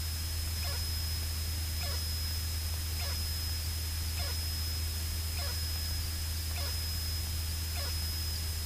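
Light aircraft's piston engine and propeller droning steadily, heard inside the cabin, with a thin steady high tone over it. A faint falling chirp repeats about once a second throughout.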